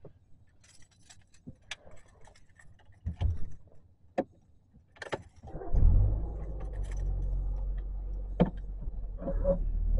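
Keys jangling and scattered clicks and knocks inside a car. About five and a half seconds in, the car's engine starts and settles into a steady idle.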